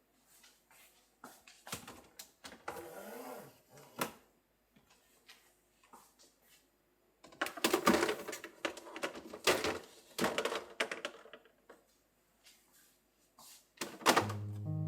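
Irregular clicks, knocks and rustling of household items being handled, with a short squeak about three seconds in. Background music starts near the end.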